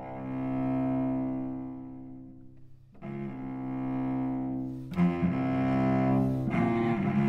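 Solo cello playing slow, long bowed notes without piano: a note that swells and then fades away over nearly three seconds, followed by further sustained notes starting about three and five seconds in.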